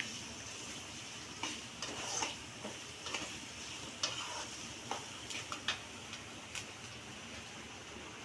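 Onions frying in hot oil with a steady sizzle, while a spoon scrapes and clinks against the pan at irregular moments as they are stirred.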